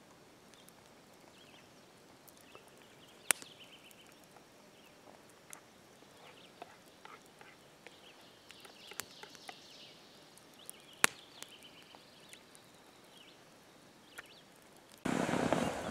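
Small wood campfire crackling, with a few sharp, separate pops over quiet outdoor background. A sudden louder rush of noise comes in near the end.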